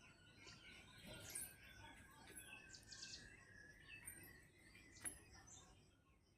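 Faint bird chirps and calls, scattered short notes, with a single sharp click about five seconds in.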